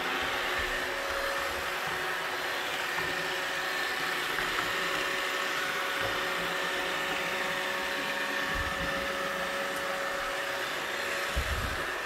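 iRobot Roomba 676 robot vacuum running: a steady whirr from its vacuum motor and brushes, with a couple of thin, steady whining tones.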